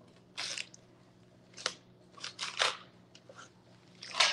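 Large kitchen knife cutting through a head of red cabbage on a plastic cutting board: a string of short crunching cuts, the loudest just before the end.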